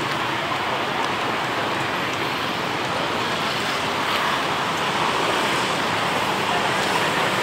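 Steady outdoor traffic noise: an even roar of passing cars and motorbikes.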